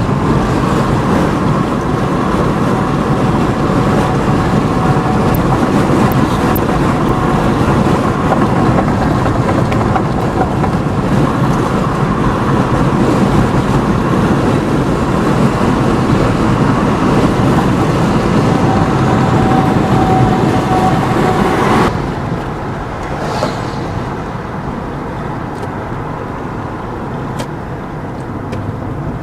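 Heavy rain pouring down in a steady loud rush from a thunderstorm. About two-thirds of the way through, the sound suddenly drops to a softer, lighter rush of rain.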